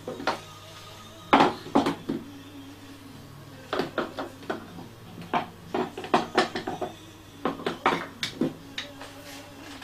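Metal hand tools clinking and knocking against each other and the wooden rack as they are handled on a workshop tool wall, in irregular clusters of sharp clicks.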